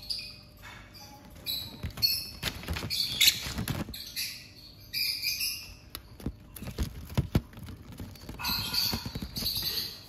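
Lovebirds giving short bursts of high chirps, mixed with rapid clicking and rustling as a bird pecks and chews at a paper sheet on the wire cage top.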